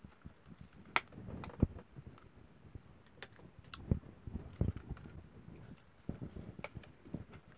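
Handling noise from a plastic-bottle planter and black garden tie wire being fastened: irregular sharp clicks, light taps and a few dull knocks over soft rustling.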